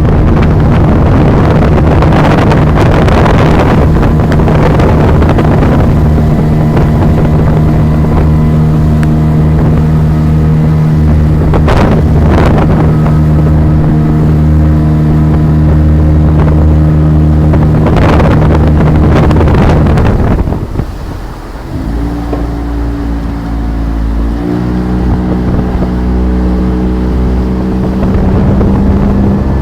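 Motorboat engine running steadily at speed, with rushes of wind and spray now and then. About twenty seconds in the engine drops to a lower, quieter note, then picks up slightly a few seconds later.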